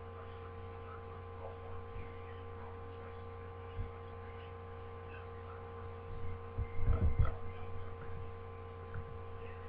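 Steady electrical mains hum from the recording setup, with a soft low thump a little before the middle and a cluster of soft low thumps about two-thirds of the way in.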